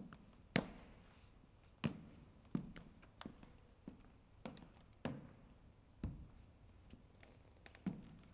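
Footsteps of hard-soled shoes on a hard stage floor, a measured walk of about one step every two-thirds of a second, each heel strike followed by a short echo.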